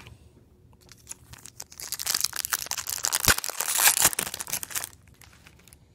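Foil wrapper of a 1999 Donruss football card pack being torn open and crinkled: a dense, crackling rustle of foil that starts about a second and a half in and lasts about three seconds, with a couple of sharper snaps.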